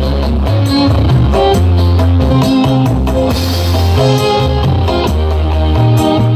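Loud music with deep held bass notes and a steady drum beat, played through a large outdoor PA system of tower-mounted line-array loudspeakers.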